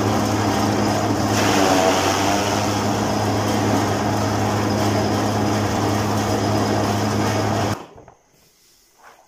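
Electric-motor forage chaff cutter running with a steady hum while green grass and straw are fed in and chopped, louder and rougher for a moment about a second in. It cuts off suddenly near the end.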